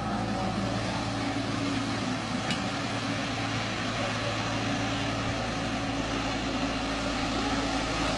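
Heavy-equipment diesel engine running steadily at a constant pitch.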